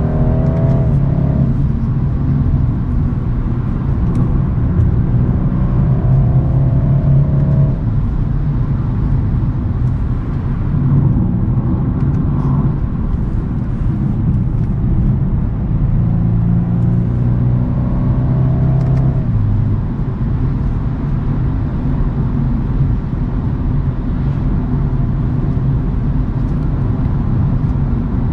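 2022 BMW 230i's turbocharged four-cylinder engine and exhaust under way, with a steady low rumble and road noise. The engine note climbs in pitch under throttle a few times: near the start, around five seconds in, and around eighteen seconds in.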